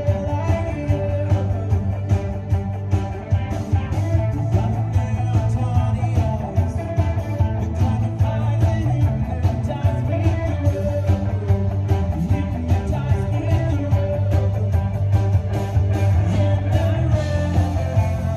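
Live amplified rock band playing: electric guitars, bass guitar, drum kit and keyboard, with a steady drumbeat and a prominent bass line.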